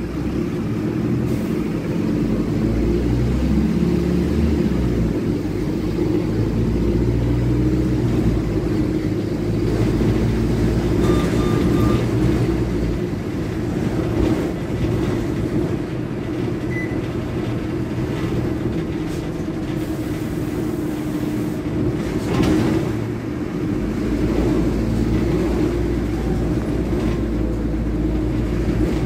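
Mercedes-Benz OH1621L city bus's rear-mounted four-cylinder OM-924 LA turbodiesel, heard from inside the bus through a free-flowing exhaust ("escape libre"). The engine note rises and falls as the bus drives, with a short beep about eleven seconds in.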